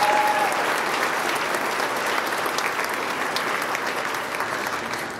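Audience applauding in a gymnasium, a dense patter of many clapping hands that dies away near the end, with a short whoop at the start.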